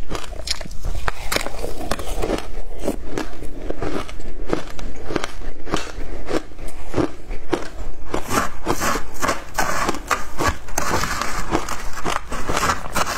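Close-miked chewing of shaved ice, a rapid, continuous run of crisp crunches. In the last few seconds a metal spoon scrapes through the shaved ice in its plastic tray.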